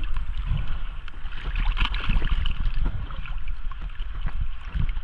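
Water sloshing and splashing at the surface against a small boat's hull, with irregular knocks from gear being handled and a low rumble of water and wind on the camera microphone.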